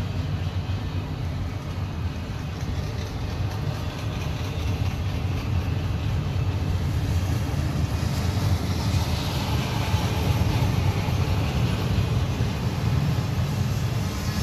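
Double-stack intermodal container train rolling past close by: a steady low rumble of steel wheels on rail, with a brighter hiss joining about halfway through.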